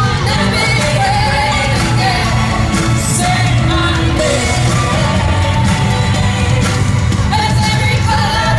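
A live band plays a pop song in an arena, a woman singing the lead over a strong, steady bass and drums, recorded from within the audience.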